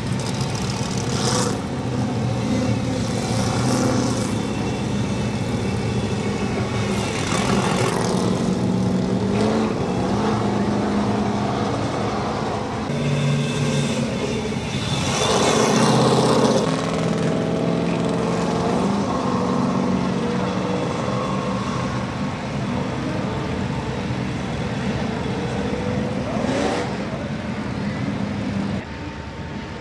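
Race truck engines running and revving, their pitch rising and falling, with a louder surge about halfway through.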